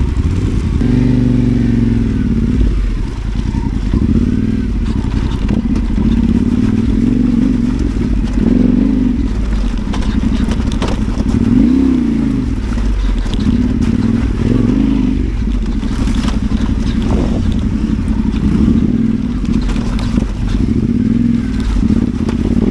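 Parallel-twin adventure motorcycle engine revving up and down repeatedly as the bike is ridden over rough ground, with short clatters and knocks mixed in.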